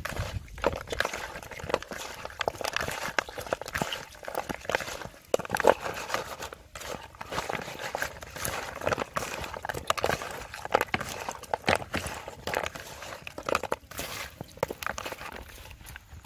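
Raw chicken feet mixed by hand with a wet red seasoning paste in a plastic basin: irregular squelching, with clicks as the feet slide and knock against each other.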